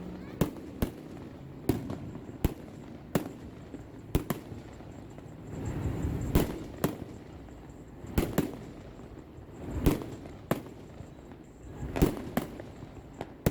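Fireworks exploding: a dozen or more sharp bangs at uneven intervals, with a couple of longer, deeper rumbling swells around the middle.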